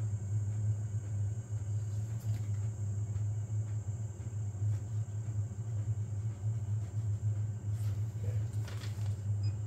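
Steady low hum of a powered-on 3D printer, its cooling fans running, with a few faint papery rustles near the end as a sheet is slid under the nozzle for bed levelling.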